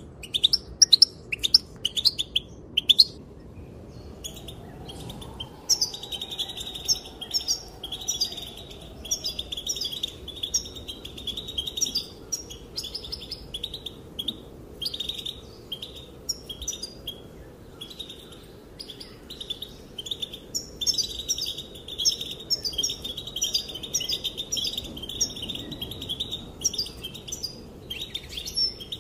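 European goldfinch calling: a quick run of sharp chirps in the first few seconds, then repeated twittering phrases with short breaks between them.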